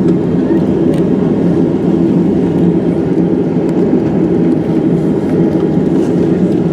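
Boeing 767-300's jet engines heard inside the passenger cabin: a loud, steady roar, deepest and strongest in the low range.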